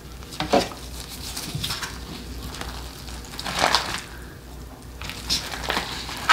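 Bibim-guksu being tossed in a disposable bowl with a metal utensil: a few separate scraping, squelching strokes of metal through sauce-coated vegetables and noodles against the bowl, loudest about half a second in, a little before four seconds and near the end.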